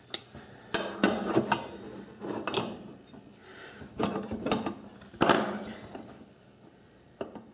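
A steel machinist's combination square and rule being handled and set against a metal pie pan: irregular sharp metallic clicks and knocks, some with a brief ring, quieter near the end.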